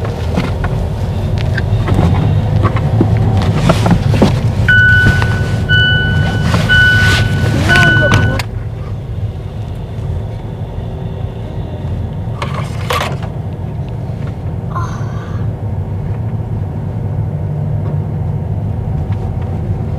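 Car cabin noise while driving: engine and road rumble, with a run of short electronic beeps about five to eight seconds in. About eight seconds in the noise drops abruptly to a quieter steady hum.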